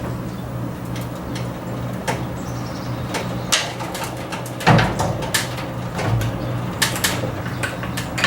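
Scattered knocks and clicks of a floor jack and wooden blocks being handled under the truck's axle, with a heavier thump about halfway through. A steady low hum runs underneath.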